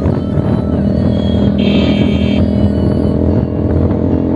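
Bajaj Pulsar 220 single-cylinder engine with an aftermarket SC Project exhaust, running at a steady speed while being ridden. A brief high tone sounds about halfway through.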